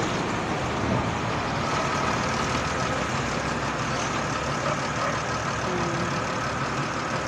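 Belarus MTZ farm tractor towing a loaded slurry tanker past at close range, its diesel engine running steadily as it drives by.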